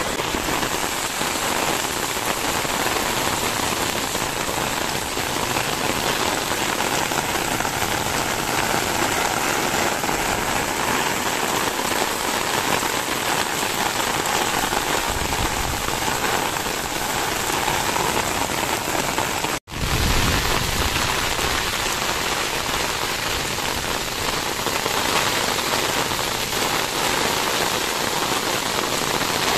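Heavy rain falling steadily on wet paving and puddles, a dense, even hiss. About two-thirds of the way through it cuts out for an instant, then carries on.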